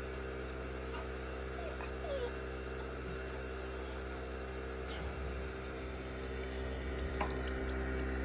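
A chick inside a pipped egg peeping faintly, a few short high chirps, over a steady hum. The peeping is the sign that the chick is about to hatch.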